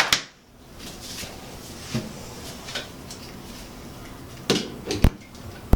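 A few short clicks and knocks as a hair dryer is handled and plugged in, the sharpest about five seconds in.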